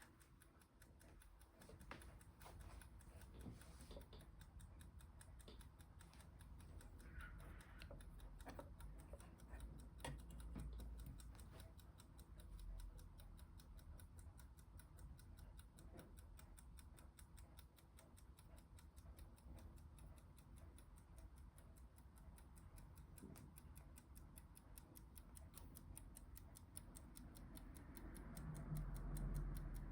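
Aichi Tokei spring-wound 7-jewel mantel clock ticking faintly and evenly, with a few louder clicks along the way and a louder low sound near the end.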